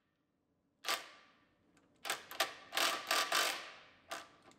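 Scattered metal clicks from a cordless ratchet, its battery dead, being worked by hand on a sway bar link nut. There is one click about a second in, a quick cluster from about two to three and a half seconds, and another near the end. No motor runs.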